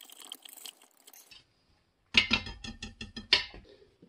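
A whisk beating a thick sauce in a stainless steel Instant Pot inner pot: a quick run of metal clicks and scrapes against the pot, about six a second, starting about two seconds in. The sauce is being whisked because it is too thick and not breaking up.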